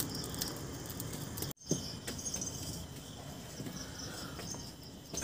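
Light metallic clinks as a black iron kadai is set onto a wood-fired clay stove, over a steady background of crickets chirping.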